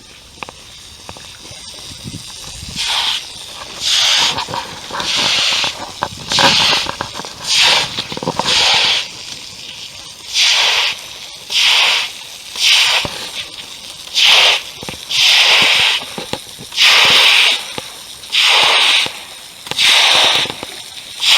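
Footsteps on wet, muddy ground at a slow, steady walk, about one step a second. Each step is a long swishing hiss. The steps start a few seconds in and get louder as they go.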